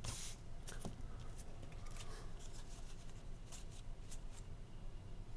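Trading cards being handled, flicked through and gathered into a stack by hand: a string of light, irregular snaps and rubs of card against card.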